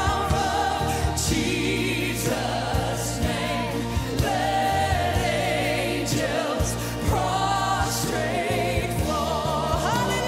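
Live gospel worship song: a woman leads the singing with vibrato, joined by backing singers and a choir, over a band with drums keeping the beat.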